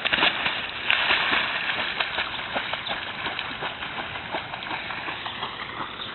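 Dog splashing into pond water after a thrown ball, a loud burst of splashing at the start and again about a second in, then steady rhythmic splashing as it paddles out.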